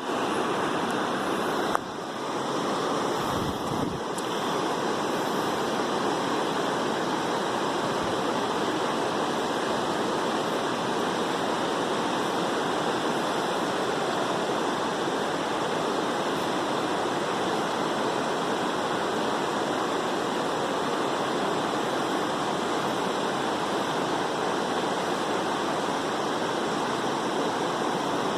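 Swollen river in flood, fast water rushing steadily. A brief knock about two seconds in.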